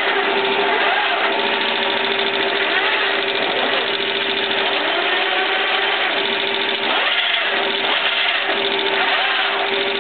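Soviet 1K62 engine lathe running with its headstock cover off: the gear train and shafts spin with a loud, steady mechanical whir and an even hum. The forward friction clutch pack has just been tightened.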